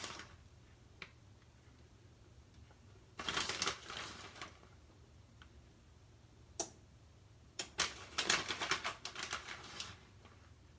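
Hands rustling through shredded cheese and scattering it over a lasagna in a glass baking dish: two spells of quick, crackly rustling, with a few single clicks between them.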